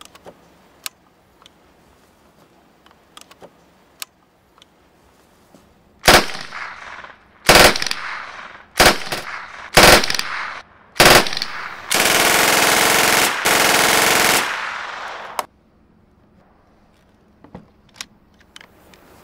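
PPSh-41 submachine gun firing on full automatic: five short bursts, then one long burst of about two and a half seconds with a brief break in the middle. Light metallic clicks of the gun being handled come before and after the firing.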